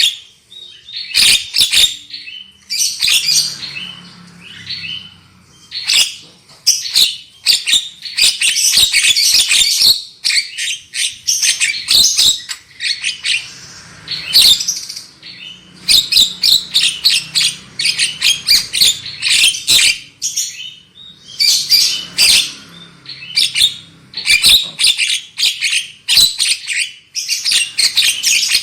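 Javan myna (jalak kebo) calling loudly: dense, rapid chattering and shrill notes in near-continuous bursts, with a few short pauses.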